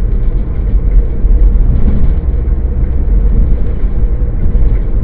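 Steady low rumble of a car's road and engine noise, heard from inside the cabin through a dashcam's microphone while driving.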